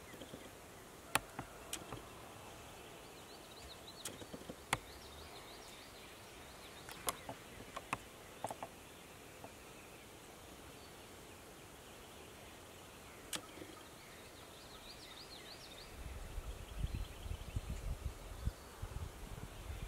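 Quiet woodland ambience with faint distant songbird calls twice. A few sharp clicks or twig snaps are scattered through it. Low rumbling starts in the last few seconds.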